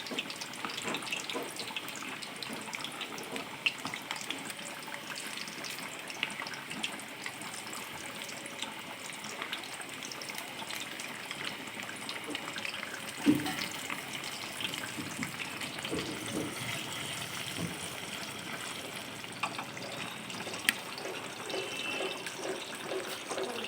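Boiled potatoes sizzling and crackling steadily as they fry in hot oil in a kadai, with a few louder knocks now and then.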